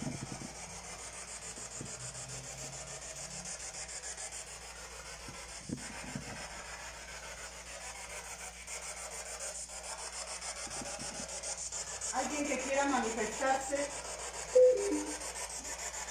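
Spirit box sweeping through radio stations: a steady, rapidly pulsing hiss of static. A few garbled voice-like fragments come through about twelve seconds in, then a short loud sound just after.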